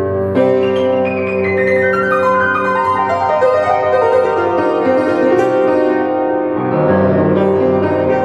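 Beckwith spinet organ being played: a long run of notes stepping down in pitch over a bass note held throughout, each note sustaining evenly instead of dying away, with a fresh chord coming in near the end.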